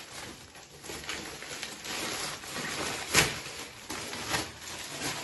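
Grey plastic mailing bag rustling and crinkling as a large folded garment is pulled out of it, with a sharp crackle about three seconds in.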